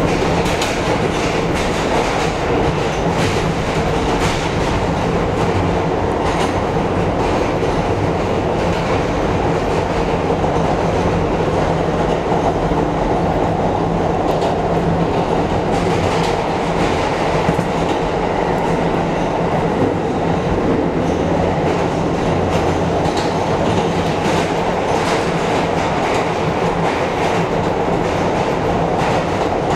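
R160 subway train running through a tunnel, heard from inside the front car: a steady rumble of wheels and running gear with a constant hum and scattered clicks of the wheels over the rails.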